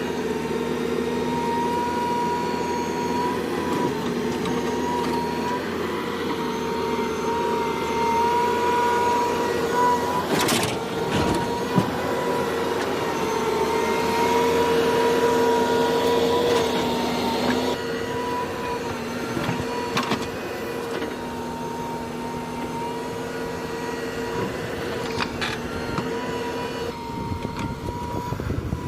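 Heavy-machinery diesel engine running steadily under load, with a steady whine. There are a few sharp knocks about ten, twelve and twenty seconds in, and the whine drops away near the end.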